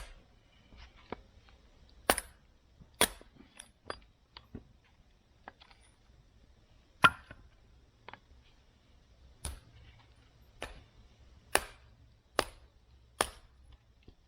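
A series of sharp knocks at irregular intervals, about nine loud ones with lighter clicks and taps between them.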